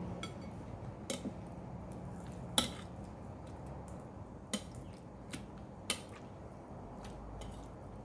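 Kitchen utensils and dishes clinking: a few separate sharp clinks, the loudest about two and a half seconds in, over a faint low hum.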